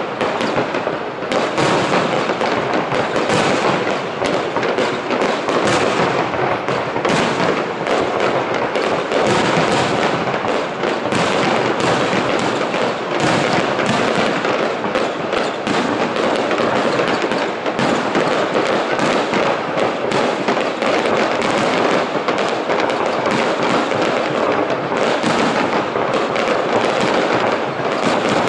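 Aerial fireworks display, a dense, unbroken barrage of shell bursts with many bangs overlapping one another.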